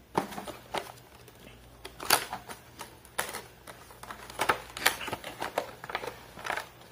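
Cardboard microphone box being unboxed by hand: a string of separate scrapes, rustles and clicks as the paper sleeve is slid off and the lid lifted.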